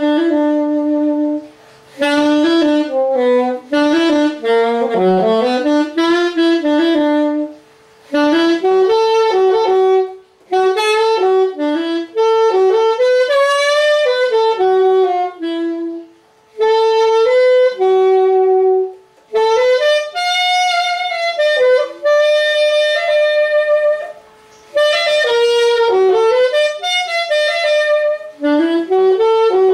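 Yamaha YAS-280 alto saxophone playing a melody, phrase after phrase, with short breaks for breath between phrases.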